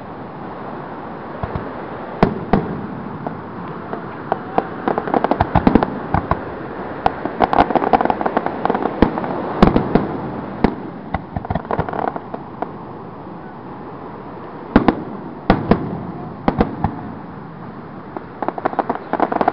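Aerial fireworks shells bursting: an irregular series of sharp bangs and crackles, thickest in the middle and again near the end, over a steady background noise.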